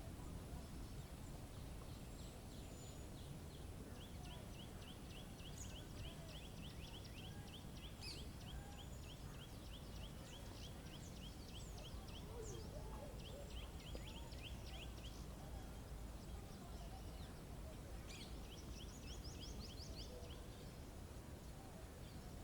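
Small songbirds singing long rapid trills of short, high, repeated notes, with a steady low rumble of background noise underneath.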